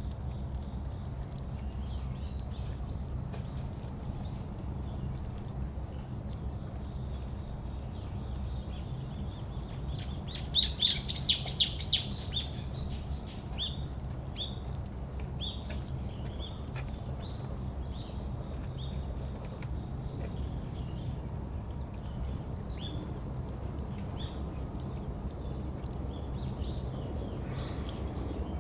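A small songbird gives a loud burst of about six quick, downward-sweeping chirps about ten seconds in, then fainter scattered calls. Under it runs a steady high-pitched insect trill, like a cricket's, with a low rumble of ambient noise.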